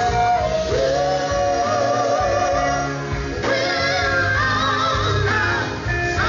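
Male gospel vocal group singing live over a band of electric bass, electric guitar, drums and keyboard, amplified through stage speakers.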